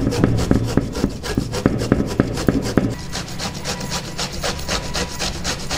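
Peeled bottle gourd rubbed back and forth over a metal hand grater: a rapid, even run of rasping strokes, several a second.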